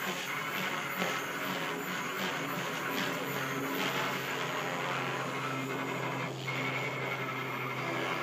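Miniature Aircraft Furion 450 electric RC helicopter in flight: the whine of its motor and the whoosh of its spinning rotor blades. The sound pulses for the first few seconds as it manoeuvres, then settles into a steady whine about halfway through.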